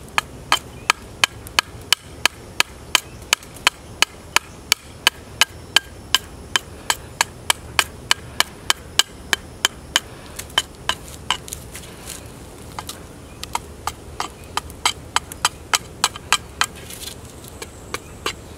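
Heavy chopping knife striking a wooden bow stave in quick, even strokes, about three a second, chipping away wood as the handle is roughed out. The chopping breaks off for about a second two-thirds of the way through, then carries on less evenly.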